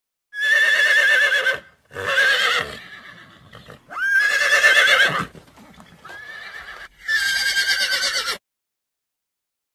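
A horse whinnying four times. Each call lasts about a second and has a quavering pitch.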